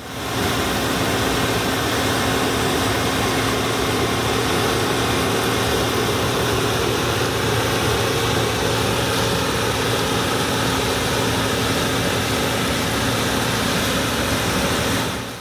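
Allis-Chalmers Gleaner F2 combine running steadily: a constant mechanical drone with an even hum. It fades in at the start and out at the end.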